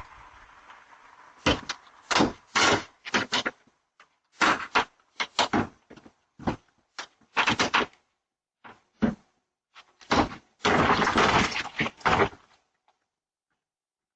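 An irregular run of loud bangs and crashes, about fifteen sharp hits over ten seconds, ending in a dense flurry of blows.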